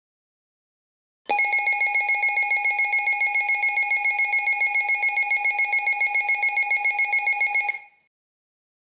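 Electronic emergency alert tone, pulsing rapidly at about six pulses a second. It starts about a second in and cuts off after about six and a half seconds.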